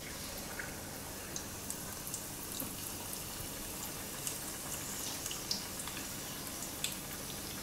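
Battered chicken pieces deep-frying in hot oil: a steady sizzle with scattered small pops and crackles, picking up slightly as a fresh piece is lowered into the oil at the start.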